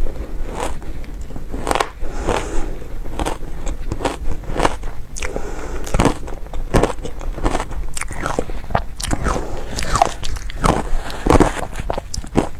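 Close-up crunching and chewing of powdery shaved ice, with a quick irregular run of sharp, crisp crunches, several a second. Played back slightly sped up.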